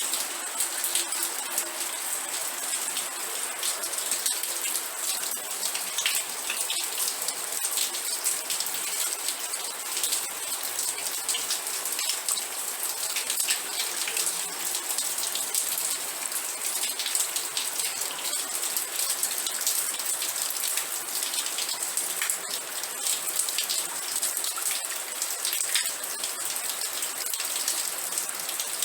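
Steady rain falling on a surface, a dense hiss of fine drop ticks.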